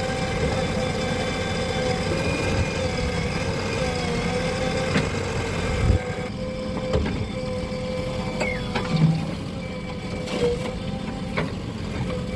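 Heavy diesel engine running steadily at work, with occasional short knocks and clanks.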